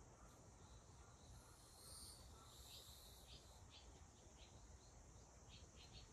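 Faint outdoor ambience: a steady high insect drone, with a series of short high chirps starting about two seconds in.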